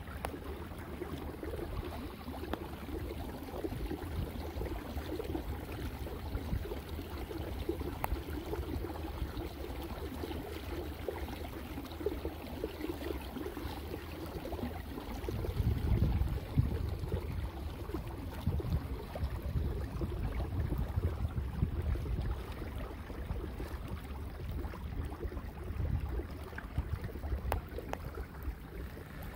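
Water lapping and splashing against a moving kayak's hull. About halfway through, low gusty rumble from wind on the microphone comes in over it.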